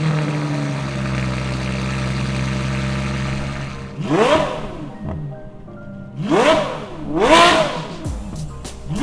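Ferrari F12 TDF's V12 idling through a custom titanium x-pipe exhaust, then blipped three times: quick revs that rise and fall back to idle, with a fourth starting at the very end.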